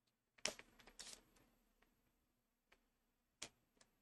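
Tarot cards being dealt out of the hand onto a cloth-covered table: a few faint, short card snaps and slides, the sharpest about half a second in, another just after a second and two more late on.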